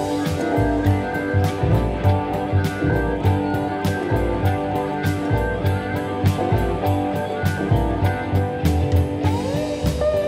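Background music: electric guitar over a steady drum beat, with one note sliding upward near the end.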